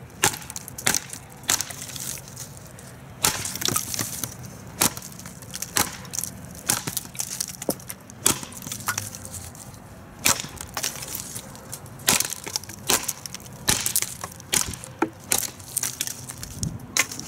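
A TOPS Bushcrafter Kukuri 7 kukri chopping into an old dead branch laid on a stump: a long series of sharp wooden chops with splintering, about one to two strikes a second at an uneven pace.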